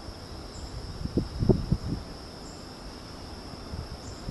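Insects trilling in a steady high-pitched drone, with a faint higher chirp every couple of seconds. A short cluster of low thumps sounds about a second and a half in.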